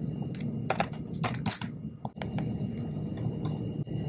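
Several light, sharp clicks or taps, bunched in the first two seconds with a few more later, over a steady low hum.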